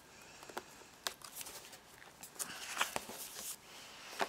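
Heavy cardstock scrapbook pages being handled and opened out: soft paper rustling with a few light taps and clicks.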